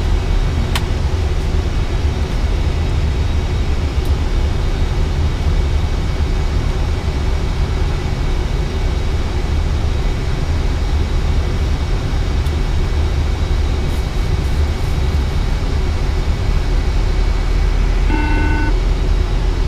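Steady low rumble of an Airbus A320 flight deck in descent: airflow and air-conditioning noise. A short tone sounds near the end.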